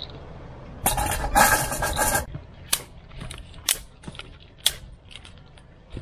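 A loud stretch of rustling handling noise, then dry twigs snapped by hand: sharp cracks about once a second, with smaller crackles between.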